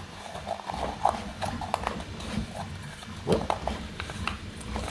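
Light hollow clicks and knocks of 3D-printed plastic parts being handled and fitted together, an irregular string of taps with a louder knock about three seconds in.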